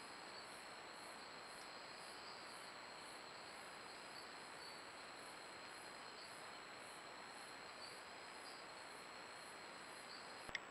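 Faint night insects calling: high, evenly pulsing chirps about three times a second over a steady hiss, with a brief click near the end.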